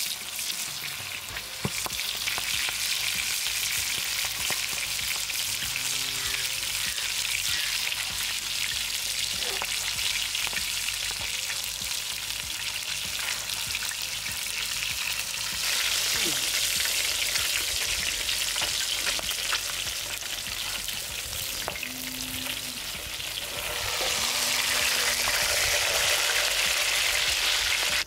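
Hot oil sizzling and crackling around a whole masala-coated red pomfret shallow-frying in a wide flat pan, with oil ladled over the fish. The sizzle grows louder about halfway through and again near the end.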